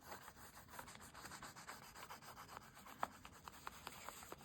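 Water-soluble crayon rubbed over paper in faint, short scratchy strokes, with a small tap about three seconds in.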